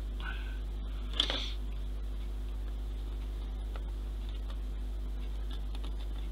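Small metal tool clicking against the parts of a plastic model ship as thread rigging is fitted: one sharp click about a second in, then a few faint ticks, over a steady low hum.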